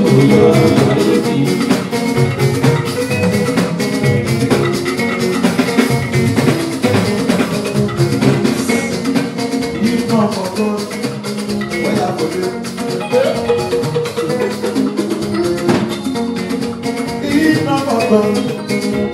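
Live party band music with electric guitars and shaker percussion over a steady beat.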